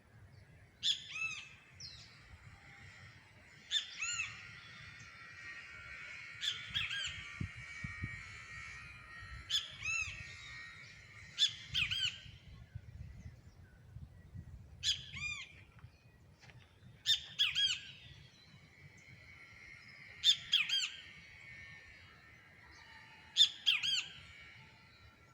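Tropical birds calling loudly: short bursts of a few arching notes repeat about every two to three seconds, over a continuous fainter chatter of other birds.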